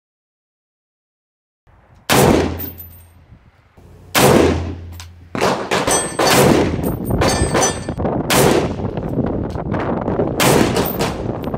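Springfield Armory M1A semi-automatic rifle firing handloaded .308 Winchester rounds (150 gr Sierra boat-tail, 43.1 gr of IMR 4064), a five-shot group with shots about two seconds apart starting about two seconds in. A metallic clanging and ringing follows the shots.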